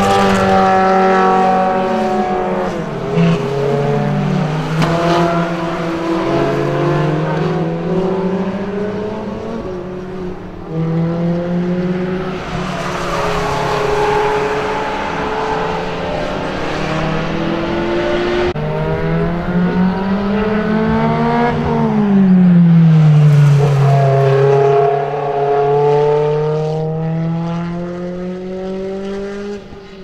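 Track cars' engines accelerating hard on a circuit, the pitch climbing and dropping back in steps as they change gear. The cars' engine notes rise and fade as they come past, with the loudest pass about three-quarters of the way in.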